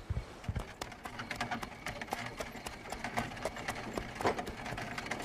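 Horse hooves clip-clopping on a hard street as a wooden cart is drawn along, a quick uneven run of clicks. Two low thuds sound right at the start.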